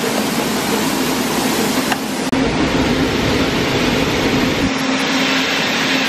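Shelled corn pouring from a hopper-bottom grain trailer's gate through a steel pit grate: a steady rushing hiss, with a low steady hum underneath.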